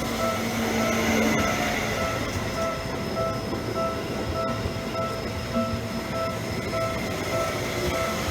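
Railway level-crossing warning bell ringing steadily at about two strikes a second, signalling the crossing is closed, while a Seibu Shinjuku Line train passes with a continuous rumble of wheels on track. A low steady tone sounds for the first two seconds.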